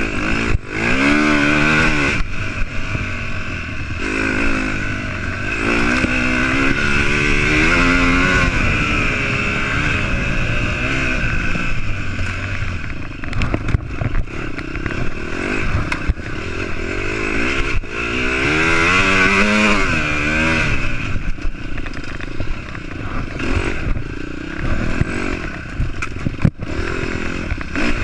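Off-road dirt bike engine revving up and down as the throttle opens and closes, the pitch rising and falling repeatedly through the gears. Scattered sharp knocks and rattles run over it.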